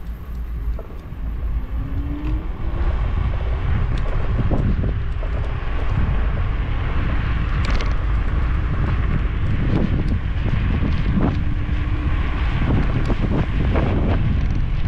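Wind buffeting the microphone over a steady low rumble of riding a scooter along a road, a little quieter for the first two seconds.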